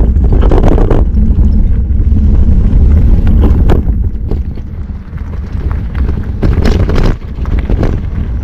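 Heavy wind buffeting on a camera microphone carried on a moving mountain bike, with occasional knocks and rattles from the bike riding over rough, rocky ground.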